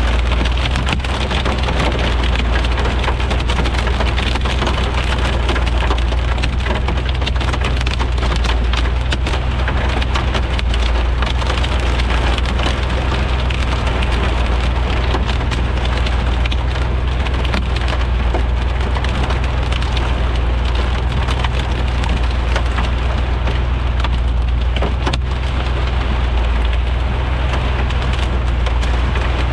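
Heavy thunderstorm rain pelting down steadily, with many sharp ticks of drops striking a hard surface over a constant low rumble.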